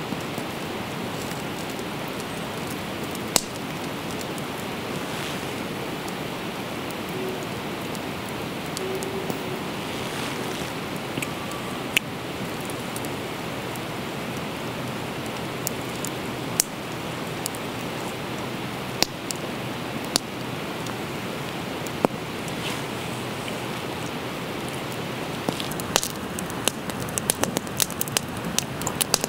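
Wood campfire burning: a steady hiss with scattered sharp pops, the pops coming thick and fast near the end.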